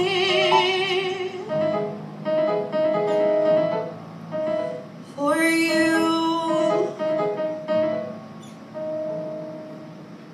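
A woman singing the closing phrases of a cabaret song, accompanied on a Korg Triton keyboard. Two long held notes with vibrato, one at the start and one about five seconds in, alternate with keyboard chords. The keyboard dies away near the end.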